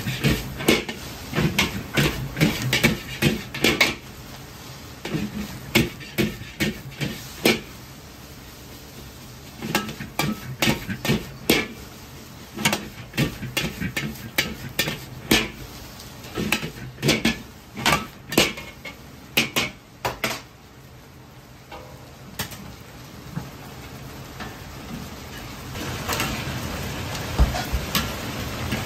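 Metal ladle clanking and scraping against a wok as fried rice is tossed and stirred, a rapid run of sharp clanks that thins out after a pause. Near the end, a steady sizzle of chicken deep-frying in hot oil.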